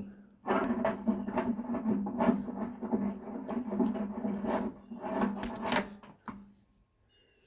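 Rasping, rubbing scrapes from handling a just-removed electric water heater heating element, over a steady low hum. The sound stops about six seconds in.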